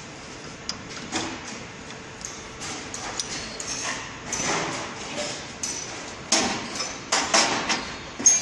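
Small metal clicks, clinks and knocks as a diesel injector and its high-pressure fuel line fittings are handled on a common rail test bench, with scraping and rustling between them. The knocks get louder and closer together in the second half, with a sharp click near the end.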